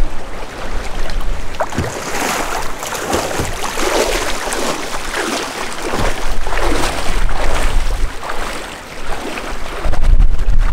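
Irregular water splashing and sloshing, in uneven surges, with wind buffeting the microphone, strongest near the end.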